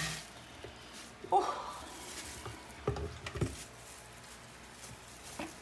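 A blender's motor cuts off right at the start. Kitchen handling sounds follow: a short clink about a second in, then two knocks around three seconds in, with light ticks between, as the blender jar is handled on the counter.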